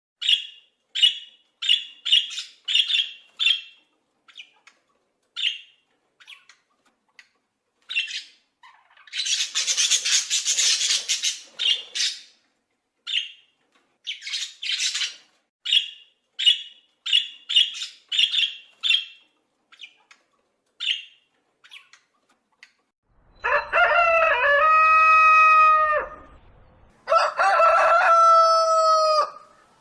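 Chickens: a long run of short, high calls, broken by a harsher noisy burst about ten seconds in, then a rooster crowing twice near the end.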